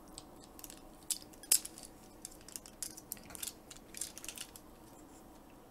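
Light clicks and rattles of hard plastic toy parts as an add-on armor leg piece is worked into its socket on a Transformers Optimus Prime figure, with two sharper clicks about a second and a second and a half in.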